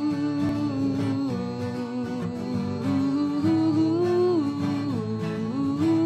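Song intro: a voice singing wordless 'uuh' notes over guitar accompaniment, the held notes stepping up and down.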